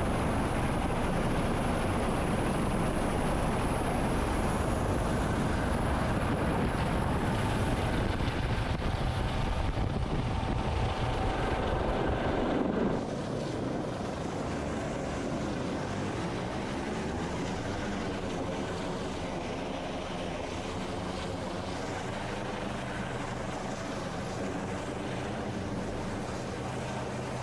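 MH-65 Dolphin helicopter running: steady, loud turbine and rotor noise. About halfway through it drops suddenly in level and carries on quieter.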